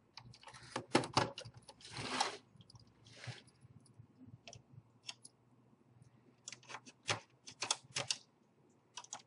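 Screwdriver working at the plastic casing of an Xbox 360 Slim: irregular sharp plastic clicks and a few short scrapes as it presses into the case to free the clips. The clicks come in two clusters, one near the start and one in the second half, with a quieter gap between.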